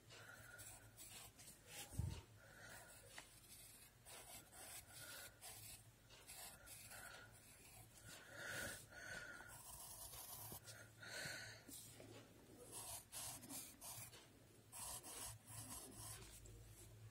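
Faint scratching of a pencil on paper, drawing a run of short, irregular strokes.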